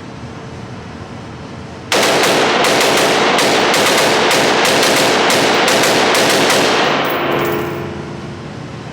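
AR-15-style rifle with a binary trigger firing a rapid string of shots, one on each pull and each release of the trigger, starting suddenly about two seconds in and running for about five seconds before dying away.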